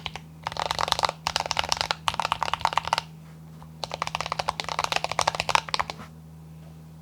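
Typing on a mechanical keyboard: a YMDK Wings case with lubed AKKO CS Ocean Blue tactile switches, foam-dampened, under PBT keycaps. Rapid keystrokes come in two bursts with a short pause about three seconds in, and the typing stops about six seconds in. A steady low hum runs underneath.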